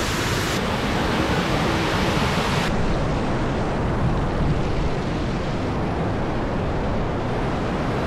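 Steady rush of water pouring over a rocky waterfall into its pool, with faint voices under it. Its hiss dulls abruptly about three seconds in.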